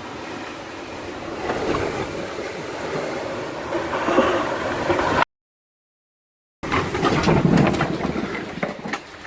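Tornado-force wind blowing hard across the microphone, growing louder over the first few seconds. The audio cuts out completely for over a second just past the middle, then the wind comes back loud.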